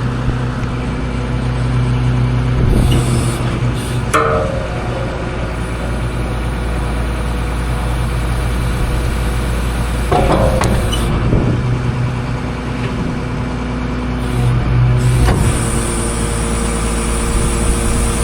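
Large farm machine's diesel engine idling steadily, with a few metallic clunks and knocks.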